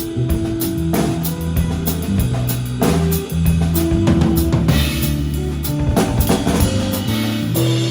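Live instrumental trio of drum kit, electric bass and electric guitar playing, with busy drumming over moving bass notes.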